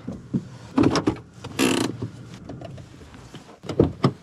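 Clicks and knocks inside a pickup truck's cab as it is parked, with a brief rushing hiss about a second and a half in. Near the end the inside door handle is pulled and the door latch clicks open.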